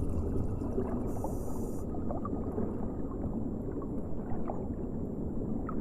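Steady low watery rumble with scattered faint bubbling clicks, an underwater-style sound that starts and stops abruptly.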